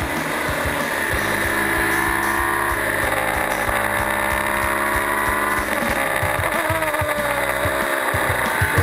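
Onboard sound of a three-seater Formula 1 car's engine running hard with wind rush. Its pitch climbs for a few seconds, then drops abruptly about six seconds in as it shifts up and starts climbing again.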